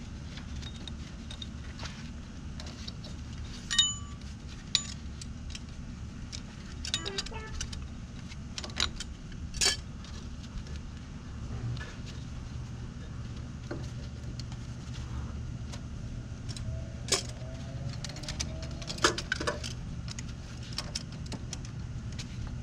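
Scattered metallic clinks and a few sharp clicks from pliers and steel parking-brake cable hardware being handled and fitted, over a steady low hum.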